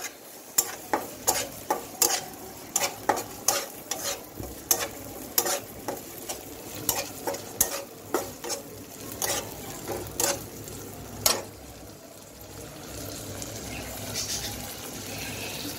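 A spatula scraping and knocking against a metal karahi as fried onions and ginger-garlic paste are stirred, with the oil sizzling steadily underneath. The knocks come about twice a second and stop about three quarters of the way through, leaving the sizzle.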